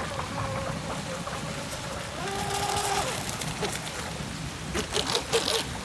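Pro Boat Miss Geico 17 radio-controlled boat running at speed across the water, a steady hiss of spray and hull on the water, with a run of sharp slaps near the end.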